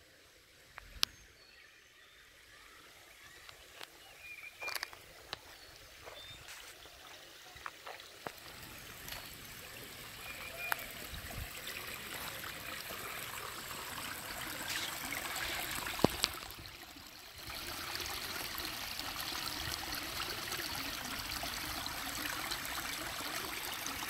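Small rocky hillside brook trickling and babbling over stones, faint at first and growing louder until it holds steady through the second half. Scattered footstep crunches on leaves and rocks, with one sharp click about two-thirds of the way in.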